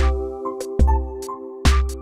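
Electronic background music with a steady beat: a drum hit a little more often than once a second over held synth chords and bass.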